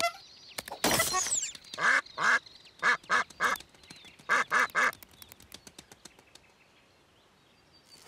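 A string of short, nasal honks in quick groups of two and three, from about a second in to about five seconds in, followed by a few faint ticks.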